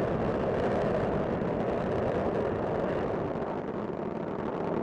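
Steady noise of Space Shuttle Discovery's solid rocket boosters and main engines during the climb shortly after liftoff.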